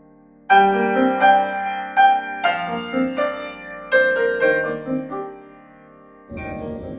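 Background piano music: notes struck about twice a second from about half a second in, dying away before a steady rushing noise comes in near the end.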